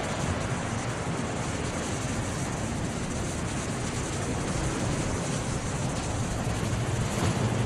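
Steady rushing noise of sea surf and wind, with an uneven low rumble underneath.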